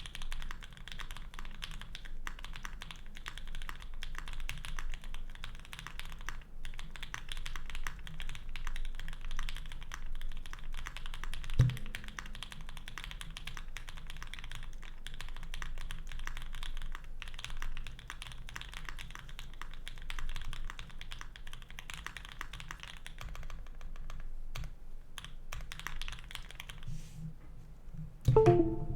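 Continuous fast typing on a Polaris custom mechanical keyboard with lubed and filmed Banana Split linear switches, an FR4 plate and GMK Space Cadet keycaps: a dense run of key presses. There is a single heavier, deeper thud about twelve seconds in, and a louder burst of knocks near the end.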